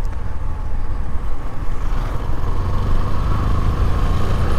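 Motorcycle engine running as the bike rides over a broken, potholed tarmac road, with a heavy, steady low rumble.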